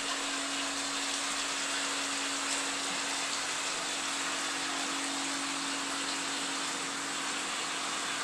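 Reef aquarium system running: a steady rush of circulating water and pumps, with a steady low hum underneath.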